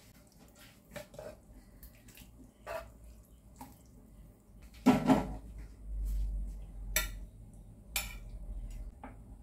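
Metal ladle and frying pans knocking and clattering on a gas stove: light scrapes and taps, a loud clunk about five seconds in, then two sharp clinks about a second apart.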